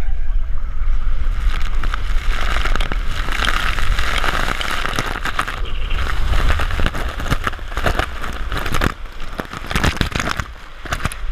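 Water rushing down a water slide, loudest a couple of seconds in, with wind buffeting the microphone and scattered knocks and clicks.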